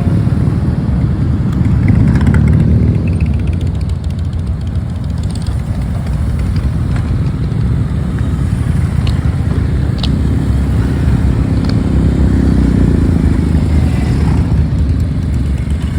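Motorcycle engines running, the sound swelling briefly a couple of times.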